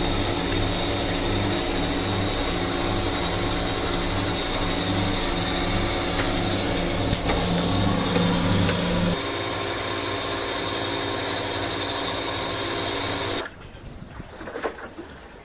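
An ice cream maker's electric motor churning, a steady whir with a hum. About nine seconds in its lowest hum drops away, and near the end it cuts off suddenly.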